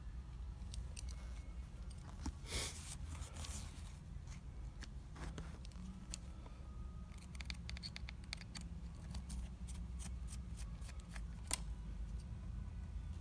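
Small sharp clicks and ticks of hand tools working at an iPad mini 2 while its LCD is lifted, with a brief scrape early on and a run of quick ticks in the second half, over a low steady hum.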